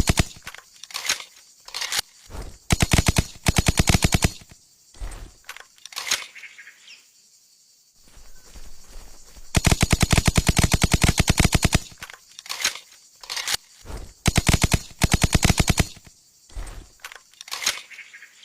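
Suppressed TMP submachine gun firing on full auto, in rapid bursts. The longest burst lasts about two seconds, a little past halfway. Shorter bursts and single shots come between, with a quiet gap of a couple of seconds before the long burst.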